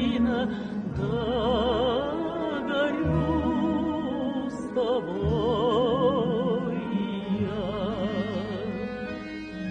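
A woman's voice singing a Russian folk song in long held notes with wide vibrato, over instrumental accompaniment.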